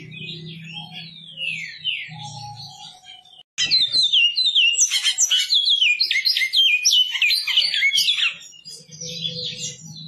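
Great-billed seed-finch (bicudo) singing. Softer falling whistled phrases over a low hum give way, after a brief break about a third of the way in, to a loud, rapid run of clear whistled notes that lasts about four seconds. Then the quieter phrases and hum return near the end.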